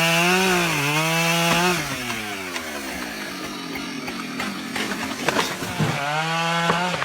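Husqvarna 572 XP two-stroke chainsaw revving high for about two seconds, then winding down, and revved up again near the end.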